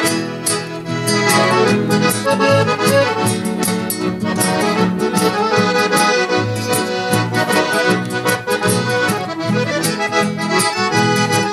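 Piano accordion playing lively traditional gaúcho dance music, an instrumental passage with a steady beat.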